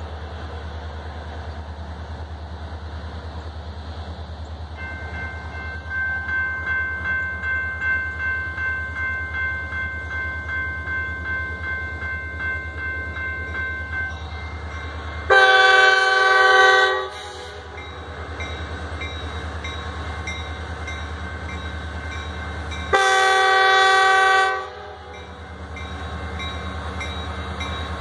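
A warning bell starts ringing about five seconds in, at about two strokes a second, over a steady low rumble. Then the freight locomotive's air horn sounds two long blasts, each under two seconds and about seven seconds apart: the opening of the long-long-short-long grade-crossing signal.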